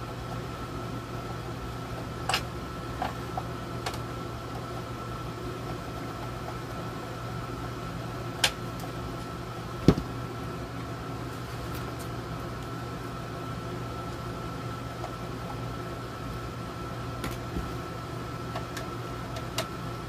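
Steady hum of a room air conditioner running, with a few scattered clicks and knocks as the radio's chassis and parts are handled; the loudest knock comes about ten seconds in.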